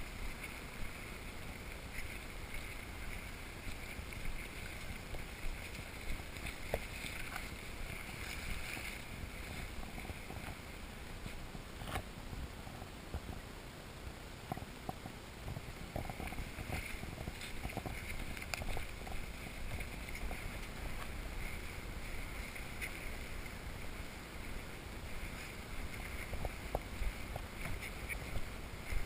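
Steady outdoor rushing noise with a low rumble, like wind on the microphone, with scattered light clicks and rustles from walking through grass and brush carrying a VHF tracking antenna.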